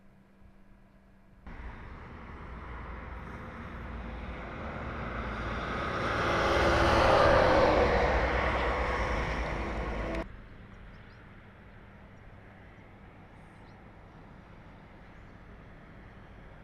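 A road vehicle driving past, its sound swelling to a peak about seven seconds in, then cutting off abruptly about ten seconds in. A faint steady outdoor hiss follows.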